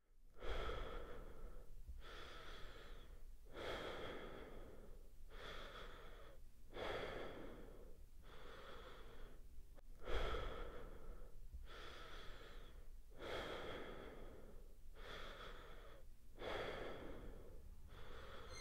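Slow, heavy human breathing, a loud drawn breath about every second and a half, repeating steadily.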